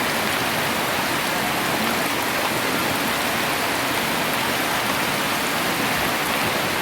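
Steady heavy rain from a tropical storm falling and pattering on surfaces, an even unbroken hiss.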